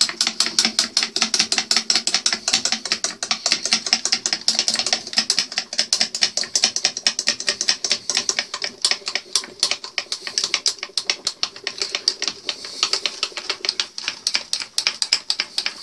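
Fly cutter with a single octagonal carbide insert face-milling a steel block at about 1250 RPM, taking a light finishing pass: a fast, even ticking as the insert strikes the work once per revolution, over the steady hum of the milling machine's spindle.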